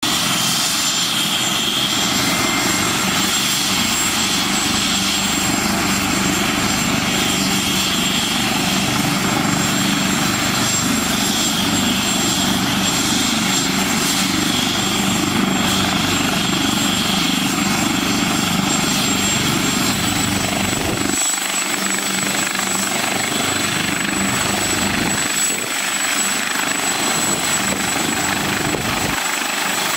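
AgustaWestland AW139 air ambulance helicopter running on the ground with its main rotor turning, before lift-off. A steady high turbine whine sits over the rotor and engine noise, and the low rumble thins out about two-thirds of the way through.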